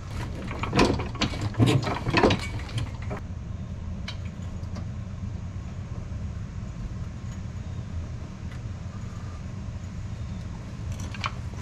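Metal clinks and knocks over the first three seconds or so as a Porsche 997 Turbo's front subframe comes loose and is lowered on a floor jack, a few more later, over a steady low hum.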